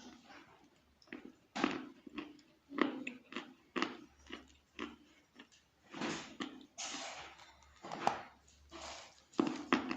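Wet chalk being bitten and chewed close to the microphone: irregular crunches about once a second, with softer chewing between them.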